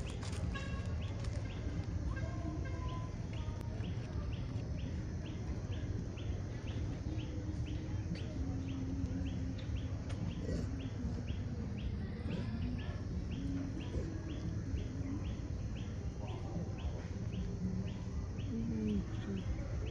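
Outdoor ambience: a short high chirp repeats evenly, about two to three times a second, over a steady low rumble, with a few faint wavering low calls.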